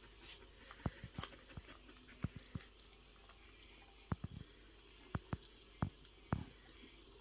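Week-old collie puppies suckling at their mother while she licks and nuzzles them: scattered, irregular wet clicks and smacks, several close together in the second half.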